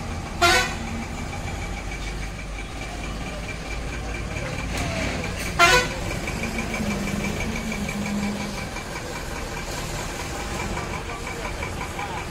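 Two short, loud vehicle horn blasts about five seconds apart, over the steady low rumble of bus and truck engines running in street traffic.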